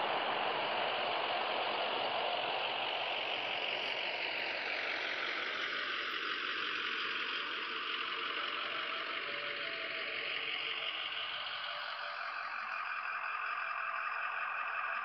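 A vehicle on the street, its engine and tyres fading out over the first several seconds as it drives away, over a steady hiss.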